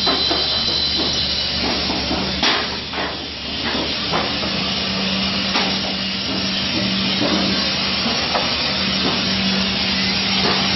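PU sandwich panel production line running: a steady, loud machinery hiss with a low hum underneath and a few scattered knocks.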